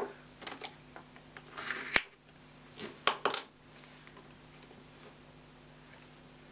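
A scraper drawn across a steel nail-stamping plate to wipe off excess black stamping polish: a few short scrapes and clicks in the first three and a half seconds, the loudest a sharp click about two seconds in.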